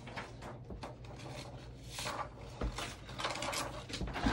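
Faint, scattered knocks and rustles of handling, over a steady low hum.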